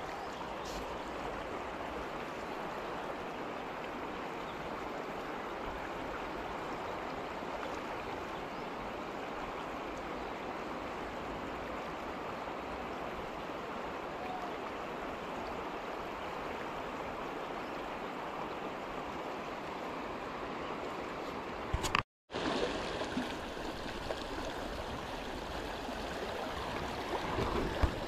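Shallow river flowing and rippling over rocks, a steady rushing of water. It breaks off for a moment about three-quarters of the way through, then goes on with the sound of small rapids.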